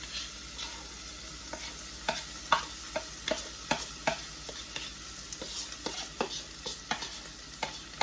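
Onions sizzling in butter in a pan as finely chopped broccoli is added and stirred in. A utensil makes frequent, irregular clicks and scrapes against the pan over a steady faint sizzle.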